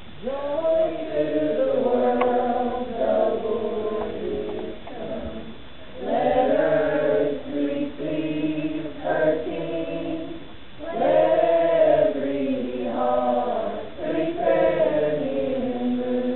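A small choir of teenagers and children singing together from song folders. They sing in sung phrases with short breaks about six and eleven seconds in.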